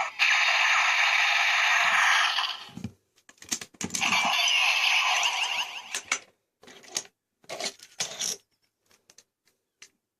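Electronic sound effects and audio from the DX Break Gunner toy, played through its small speaker in two stretches, with short plastic clicks between and after them from the toy and its Shift Cars being handled.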